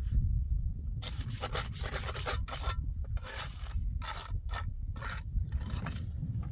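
A hand trowel scraping over concrete blocks and mortar in quick repeated rasping strokes, about two to three a second, starting about a second in.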